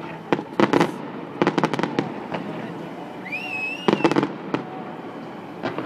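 Fireworks going off in quick clusters of sharp bangs and crackles, with a high whistle that rises and then holds for a moment between three and four seconds in.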